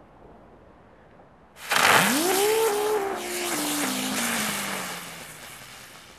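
Chili Spinners ground spinner firework igniting on the pavement about a second and a half in. It fizzes loudly while spinning, with a whine that rises quickly, then falls slowly in steps and fades out as it burns down.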